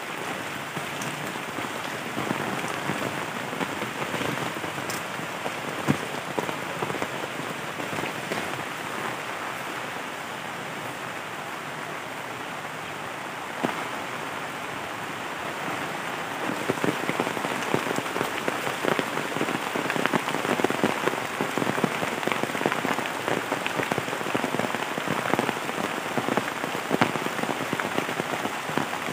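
Steady rain falling on trees and the ground, with single close drops ticking through it. It grows heavier a little past halfway.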